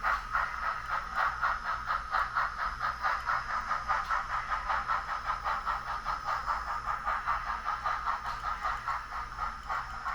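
A small model-railroad mechanism running on test, with a steady whine and an even rhythmic clicking of about four clicks a second that stops near the end, over a low steady hum.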